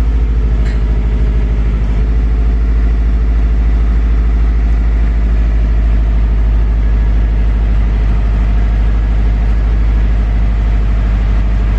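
2005 Subaru WRX STI's turbocharged flat-four engine idling steadily.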